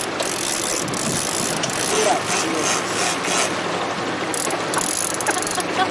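Large conventional big-game fishing reel being cranked, its gears and ratchet clicking rapidly and steadily as line is wound in against a fish.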